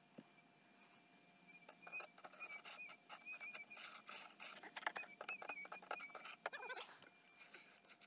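Faint scraping and chipping of a pick or digging tool working hard, stony ground to dig out a metal detector target, under a thin steady electronic tone that wobbles now and then. A brief voice-like sound, like a grunt, comes about seven seconds in.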